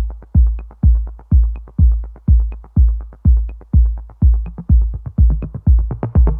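Electronic background music: a steady drum-machine kick drum at about two beats a second, with light high ticks in between.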